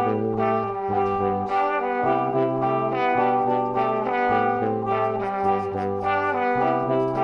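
Instrumental background music: held melody notes over a low bass line that changes about once a second.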